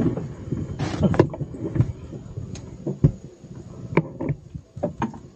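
Scattered knocks, clicks and rustles of a freshly caught giant freshwater prawn being swung into a small boat and handled off the hook, with a brief rush of noise about a second in.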